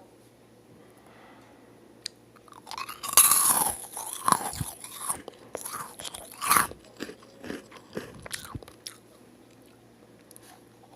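Close-miked eating of a crisp meringue cookie. A loud crunching bite starts about three seconds in, with another burst of crunching a few seconds later, then softer crackling chews that stop a little before the end.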